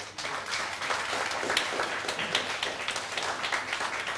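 Audience applauding at the end of a talk: many hands clapping.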